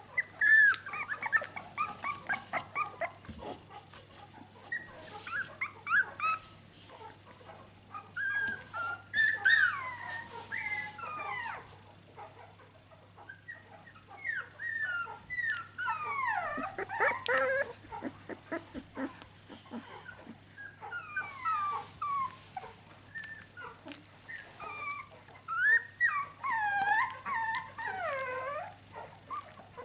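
Young Finnish Lapphund puppies whining and squeaking, with many short high calls that slide up and down in pitch, coming in clusters throughout.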